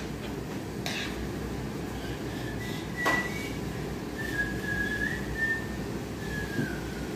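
Soft whistling: a string of short held notes that waver in pitch, starting a couple of seconds in. A couple of light clicks sound near the start, over a steady low background hum.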